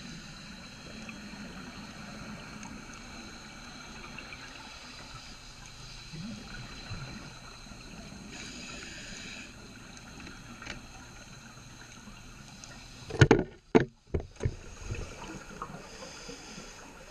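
Underwater sound picked up through a GoPro Session's housing: a steady muffled hiss. About thirteen seconds in, a quick cluster of several loud thumps and rushes breaks in.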